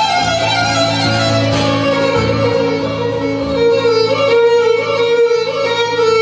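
Live music: a violin plays a Yiddish folk melody over acoustic guitar accompaniment.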